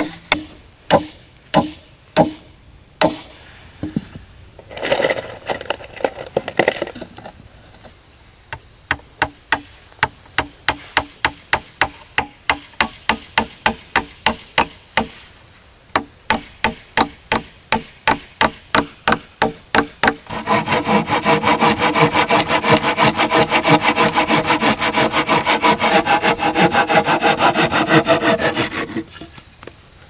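A hammer driving nails into wooden poles, a series of sharp blows. Then a machete-type blade working a wooden slat, a steady run of strokes about two a second, and in the last third a louder, much faster run of strokes on wood.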